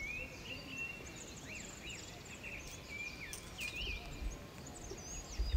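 Small birds chirping and calling, many short notes that swoop up and down in pitch, over a low background rumble. A low thump near the end is the loudest sound.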